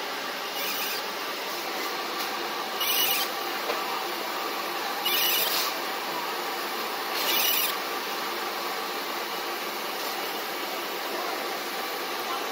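Fiber laser marking machine with a rotary pen fixture running: a steady hum, and four short bursts of high-pitched hiss about two seconds apart, after which only the hum goes on.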